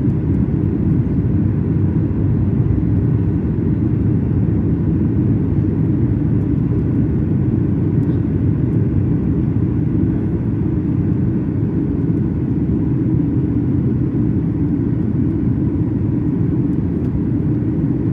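Steady rumble of a Boeing 737 MAX 8's CFM LEAP-1B engines and airflow, heard inside the cabin from a window seat, holding an even level.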